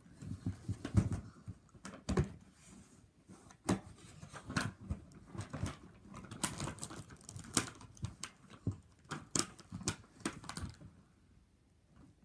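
Irregular clicks, taps and knocks of something handled close to the microphone, several a second, stopping about 11 seconds in.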